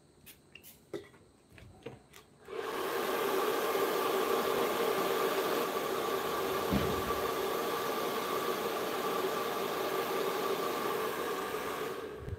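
A few light clicks, then a small electric motor switched on and running steadily with a hiss for about nine seconds before it stops near the end.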